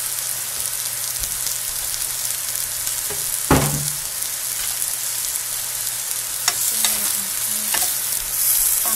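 Bitter melon and egg sizzling steadily in a frying pan over a low steady hum, with a single thump about three and a half seconds in. Near the end a wooden spatula clicks and scrapes against the pan as the vegetables are stirred.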